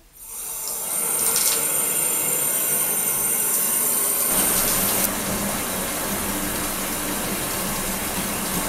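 Bathtub faucet turned on, a stream of water running from the spout and splashing onto the bottom of the tub as it starts to fill. The rush builds over about a second, then runs on steadily, its tone shifting slightly about four to five seconds in.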